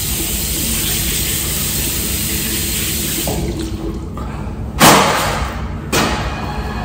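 Bathroom sink tap running as hands are washed, a steady rush of water, then two sudden loud bursts of noise about five and six seconds in.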